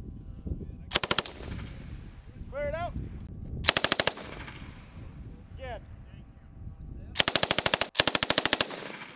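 Belt-fed light machine gun firing in bursts, each a rapid string of shots. There are two short bursts, about a second in and nearly four seconds in, then two longer bursts almost back to back near the end.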